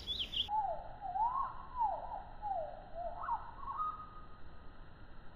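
Someone whistling a wavering tune that slides up and down several times, then holds one short steady note.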